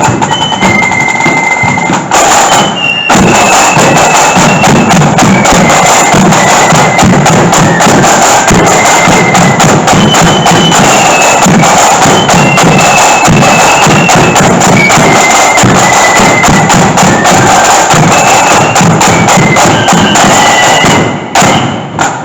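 Marching flute band playing a tune: high flutes carry the melody over snare and bass drums, very loud and close. The music drops out briefly about two seconds in, then tails off near the end.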